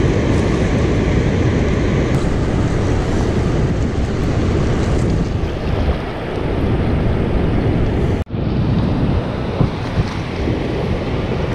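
Steady rush of water from a dam's open spillway and the churning river below it, with wind buffeting the microphone. The sound breaks off for a moment about eight seconds in.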